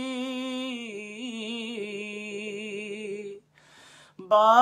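A man singing an Urdu devotional kalam unaccompanied, drawing out the end of a line in one long note that steps down in pitch about a second in and wavers in an ornamented run. After a short pause near the end, he starts the next line, louder.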